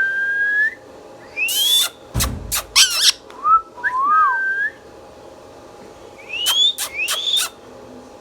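Indian ringneck parrot whistling a string of clear notes, some held level and some sweeping upward, broken by sharp, short squawks and clicks; there is a pause of about a second and a half in the middle, then more rising whistles and sharp calls.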